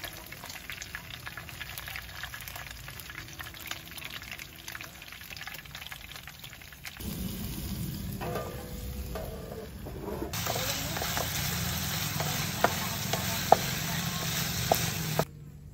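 Oil sizzling and crackling in a frying pan: fish frying, then vegetables, then pieces of meat being stirred with a wooden spatula. It gets louder from about ten seconds in, with a few sharp knocks of the spatula against the pan near the end.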